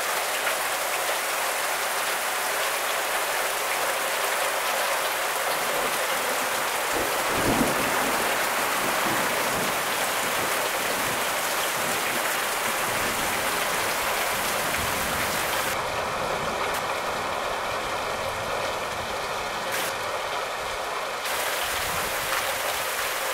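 Heavy rain pouring steadily onto trees, leaves and grass, an even hiss throughout, with a brief low rumble swelling about seven seconds in.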